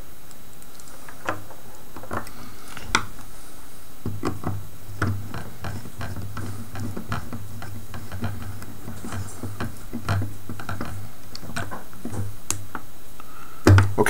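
Small irregular clicks and ticks of a screwdriver turning the terminal screws of a hospital-grade power cord plug, with the plug's plastic and metal parts handled between turns.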